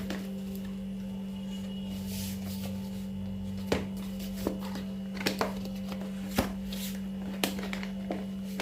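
A steady low hum with a series of sharp plastic clicks and taps, about seven of them in the second half, as a kid's school pencil box with a built-in fan and light is handled.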